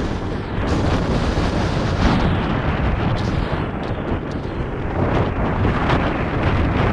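Wind buffeting the microphone on a moving motorcycle: a loud, steady rush of noise with road and engine rumble underneath.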